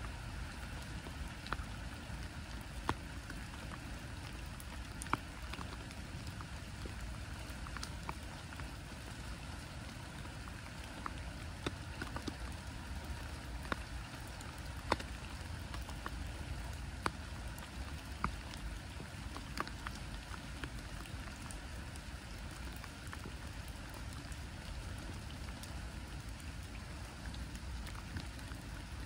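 Steady rain falling on a lake's surface: an even hiss with scattered sharp ticks of single drops at irregular moments, over a low steady rumble.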